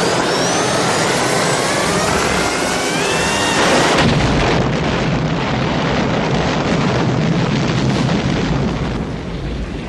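Helicopter explosion sound effect: a rising whine climbs for the first few seconds, then a sudden explosion about four seconds in, followed by a long, noisy rumble that eases off near the end.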